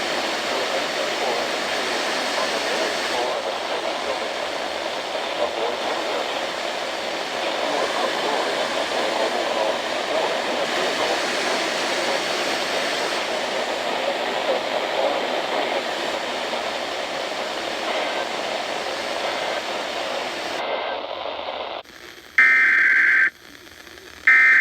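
Steady hiss of noise for about 22 seconds, then it cuts off and a loud, high-pitched warbling data burst about a second long sounds, followed by a second one starting near the end: Emergency Alert System SAME header tones opening a new alert.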